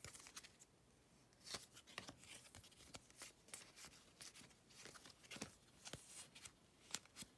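Near silence with faint, scattered soft clicks and rustles of trading cards being flipped through and handled by hand.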